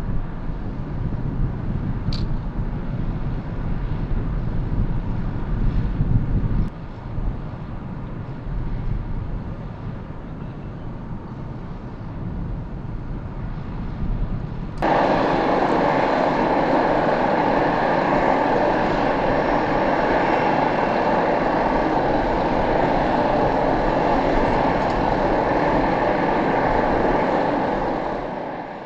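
Airport ramp noise from aircraft machinery: a low rumble at first, then, after a sudden cut about halfway through, a louder, even engine rush with a faint whine, fading out near the end.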